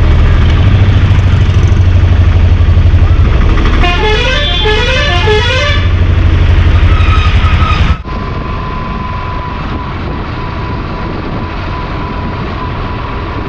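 Loud low rumble of riding on the road in traffic. About four seconds in, a vehicle's musical horn plays a short stepped tune for about two seconds. Around eight seconds in the sound cuts suddenly to a quieter, steady vehicle hum with a faint steady whine.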